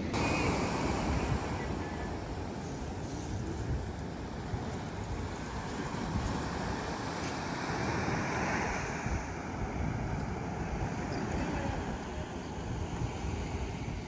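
Sea surf breaking and washing up a sandy beach, a steady rushing that swells a little about eight seconds in, with wind buffeting the microphone.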